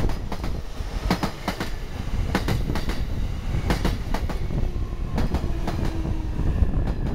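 Freight train running through the station: a heavy rumble with irregular clacks of wheels over rail joints. A faint whine starts near the end.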